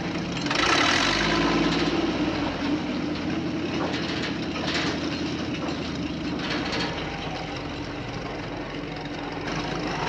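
Radio-controlled toy crawler bulldozer running on its tracks through dry leaf litter: a steady engine-like hum, with crackles of dry leaves and twigs being pushed, loudest about a second in and again twice later.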